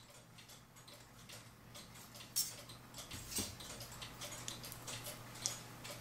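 Light, irregular metallic clicks and ticks of coiled steel clock mainsprings being handled, their coils shifting against each other, over a faint steady low hum.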